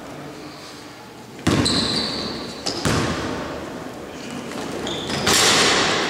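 A basketball bouncing on the gym's court floor during play: two sharp thuds, about a second and a half and about three seconds in, then a louder rush of noise near the end.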